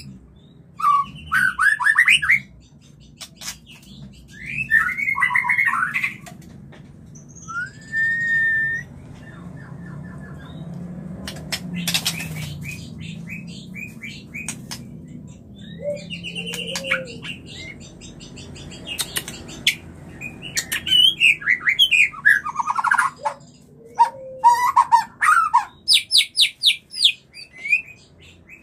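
White-rumped shama singing in breeding condition (murai kawin): short bursts of varied chattering and whistled phrases with pauses between them. The bursts come thicker in the last third, ending in a fast run of repeated notes.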